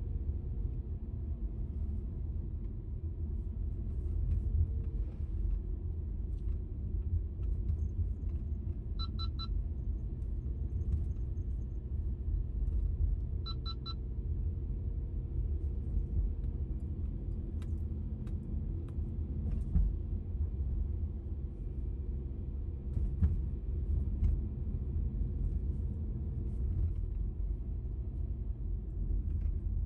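Steady low rumble of a car's engine and tyres while driving, with a few brief clusters of short high ticks.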